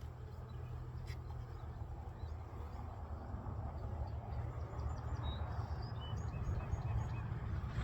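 Small birds chirping in short, high calls over a steady low rumble that grows gradually louder near the end.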